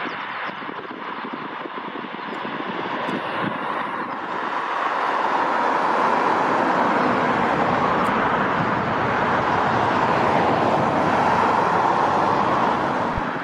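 The twin jet engines of an Airbus A330 freighter running at low taxi power as the aircraft rolls slowly toward the listener. It is a steady jet noise that grows louder about four seconds in as the aircraft comes closer.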